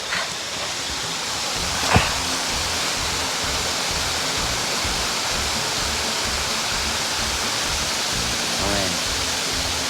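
Steady rushing roar of a waterfall, swelling slightly over the first couple of seconds, with a single sharp knock about two seconds in.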